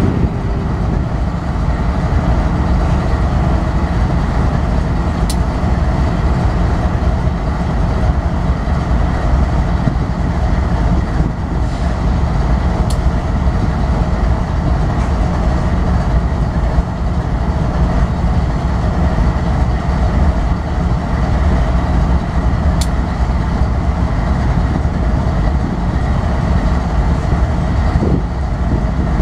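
BNSF diesel locomotive's engine running steadily at close range, a loud, even rumble.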